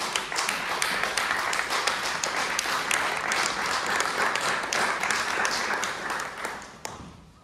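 Audience applauding: a dense, steady patter of many hands clapping that dies away near the end.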